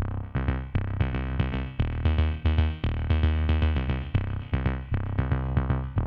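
Electronic background music with a steady drum-machine beat and synthesizer.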